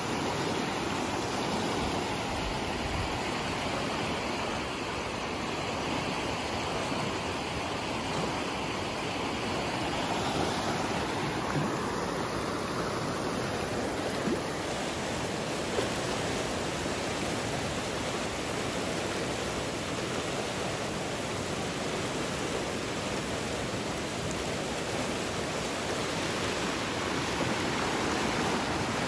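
Brown floodwater of a swollen river rushing and churning over and around a wooden low-water crossing: a steady, unbroken rush of water.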